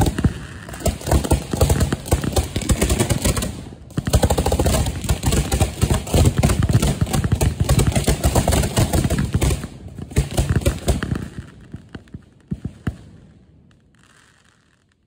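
Firework finale: mortar shells launching from racks close by in a rapid, dense barrage of booms and cracks. It pauses briefly twice, then thins to a few last shots and dies away near the end.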